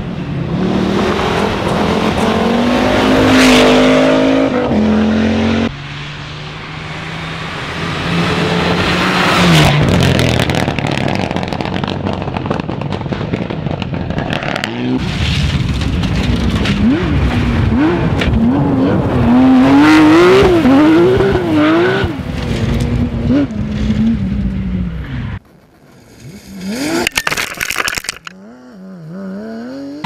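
Rally cars at full speed on loose-surface stages, in several short passes. Engines rev hard and drop through gear changes, over the hiss of tyres and thrown gravel. Midway, one car's engine revs up and down rapidly as it slides sideways through dirt and grass.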